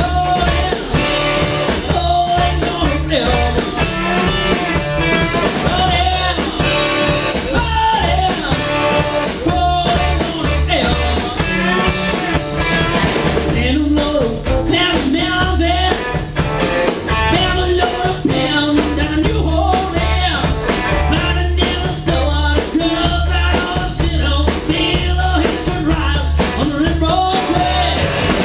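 Blues-rock band music: guitar over a pulsing bass line with drums, in a long passage between sung verses.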